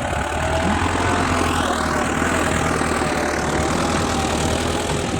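Farm tractor engine running steadily under ploughing load, a continuous low hum.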